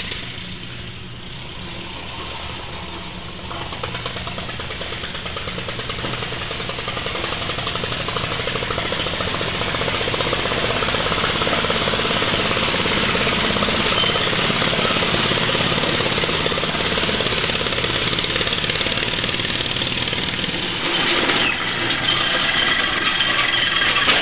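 Three-cylinder compressed-air engine of a converted lawnmower running, its exhaust giving off a rapid string of pulses that grows louder over the first dozen seconds and then holds steady.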